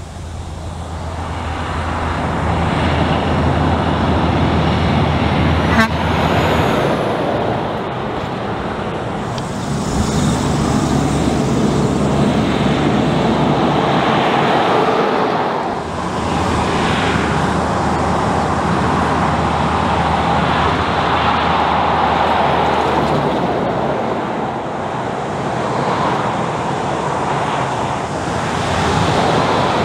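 Heavy diesel trucks approaching and passing on a highway one after another: engines running under load with tyre noise on the road surface. The sound shifts abruptly several times as one truck gives way to the next.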